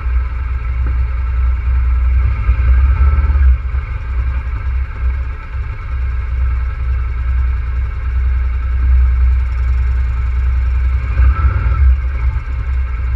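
ATV engine running steadily at low speed while wading through shallow water, swelling briefly twice, about three seconds in and again near the end.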